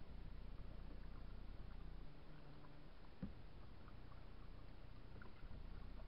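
Kayak drifting on a lake: faint water lapping and trickling against the hull over a steady low rumble, with a single soft knock on the hull about three seconds in.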